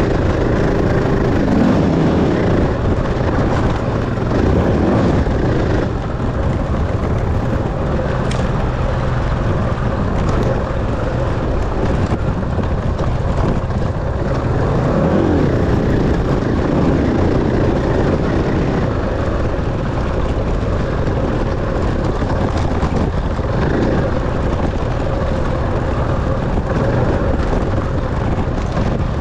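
Enduro dirt bike engine under way, its pitch rising and falling again and again as the throttle is worked over a constant low rumble.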